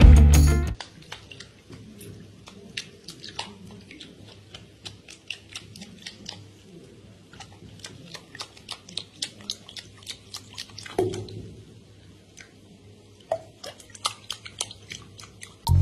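Light splashing and dripping of shallow bathwater as a hairless kitten paddles through it in a tub, with many small, sharp splashes and drips.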